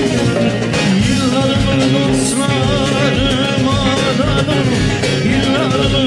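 Music from a Turkish song: an ornamented melody line with vibrato over bass and percussion.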